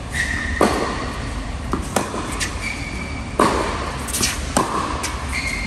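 A tennis rally on an indoor hard court: the ball is struck by strung rackets, one of them a Babolat Pure Drive Tour, about four times, roughly every second and a half, each hit ringing in the hall. Between the hits, sneakers squeak briefly on the court surface.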